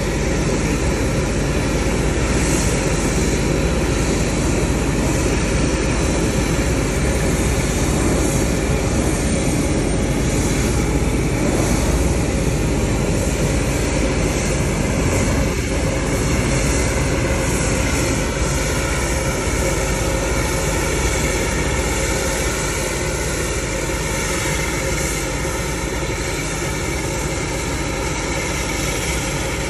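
Jet aircraft turbine running steadily, a loud, constant rushing whine with one held tone, and faint higher tones that waver slowly in pitch in the second half.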